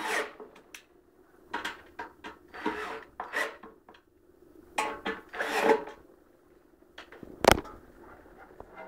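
Wooden lamp table being handled during assembly: a string of short scrapes and knocks with pauses between, and one sharp knock about seven and a half seconds in.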